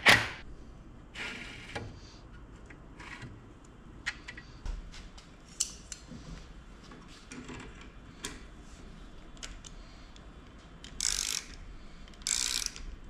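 Hands working the parts of a homemade CNC gantry axis: scattered light metal clicks and knocks, with short rattling bursts about a second in and twice near the end.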